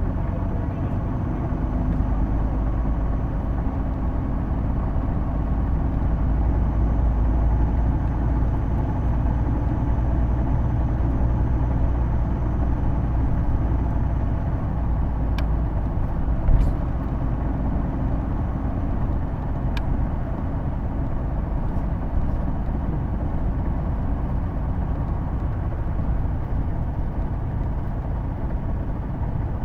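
Hino Blue Ribbon II diesel city bus driving along, heard from inside the passenger cabin: a steady engine and drivetrain drone carrying the distinctive transmission noise this bus is known for, which sounds almost like an automatic gearbox. A few short clicks and one small bump come about halfway through.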